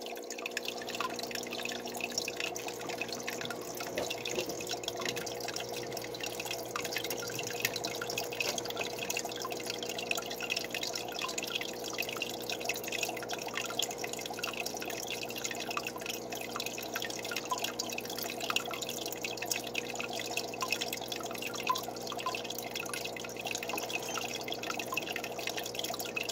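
Aquarium water trickling and dripping steadily, with a faint even hum underneath.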